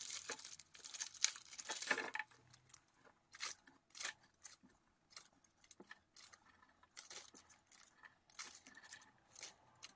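Clear plastic zip-lock parts bag crinkling as it is handled, dense at first, then scattered rustles and sharp clicks of small metal screws and nuts being taken out and set down.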